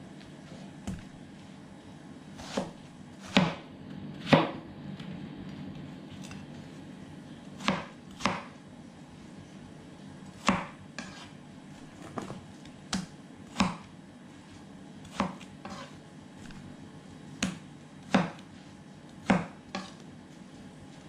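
Kitchen knife slicing through watermelon and knocking down onto a plastic cutting board: sharp, uneven chops about every second or two, the loudest a few seconds in.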